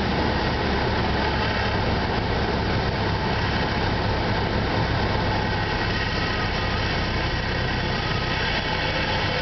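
Cessna 172's engine and propeller running steadily, heard inside the cabin during the landing flare over the runway.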